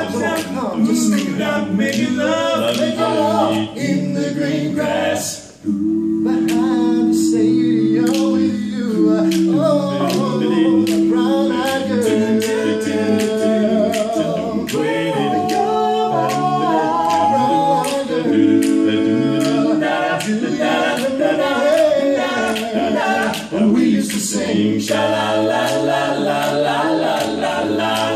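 Barbershop quartet of four male voices singing a cappella in close harmony, holding chords and moving between them. A brief break comes about five and a half seconds in before the singing resumes.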